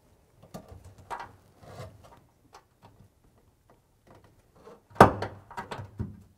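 Plastic push bushings being snapped by hand into drilled holes in sheet steel: a run of small clicks and knocks, with the loudest sharp snap about five seconds in.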